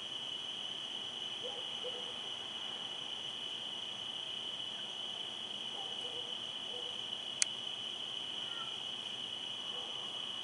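Steady, high-pitched chorus of crickets on a night with no rain, with one sharp click about seven seconds in.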